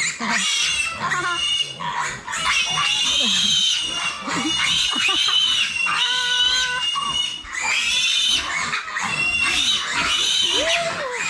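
Piglets squealing in distress, several at once, as they are caught and lifted by their hind legs. The squeals are long and high, overlap each other, and break only briefly.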